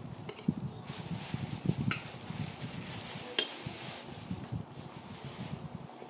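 Close-up eating sounds: chewing, with a few sharp clinks of tableware about a second apart early on.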